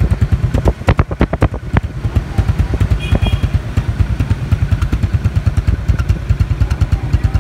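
Honda Future Neo GT 125's single-cylinder four-stroke engine idling with a steady, even beat, a smooth idle that shows the engine in good health. A few sharp clicks come about a second in.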